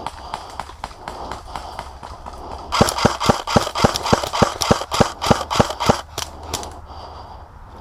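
Airsoft rifle firing a quick string of about seventeen sharp shots, about five a second, for roughly three seconds, starting a little under three seconds in. Fainter scattered clicks come before it.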